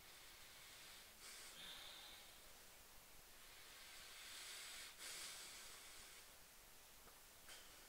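Near silence with a few faint breaths through the nose, a soft hiss about a second and a half in, a longer one around four to five seconds in, and a short one near the end.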